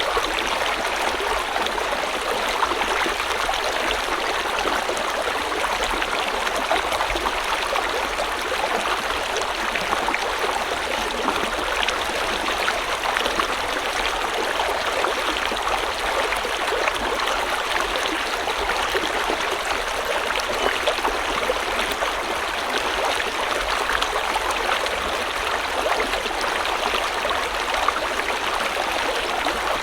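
River water flowing steadily, an even rush of running water with no pauses or changes.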